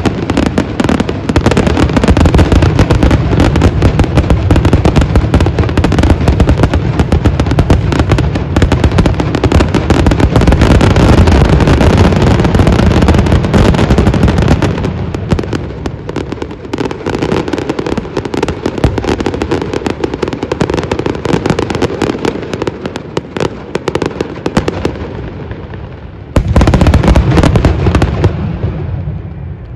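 Fireworks display going off in a dense, continuous run of bangs and crackles. It thins out and gets quieter about halfway through, then a last loud barrage comes in near the end and stops.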